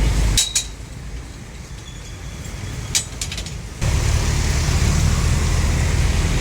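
Steady low rumble of street and traffic noise that drops away sharply about half a second in and returns abruptly near four seconds. In the quieter stretch between, a few sharp clinks sound, twice in quick pairs.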